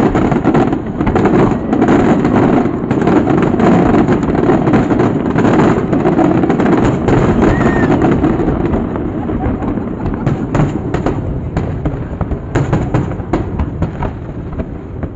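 Aerial fireworks display: a dense, continuous barrage of bursts and crackling, thinning out to separate bangs and crackles after about nine seconds.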